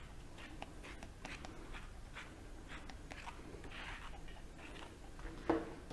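Flexkarda slicker brush drawn again and again through a maltipoo's long coat: faint scratchy brush strokes, about two a second.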